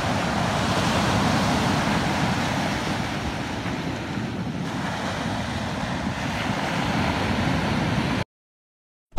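Rough sea surf washing in steadily, with wind buffeting the microphone; the sound cuts off abruptly about a second before the end.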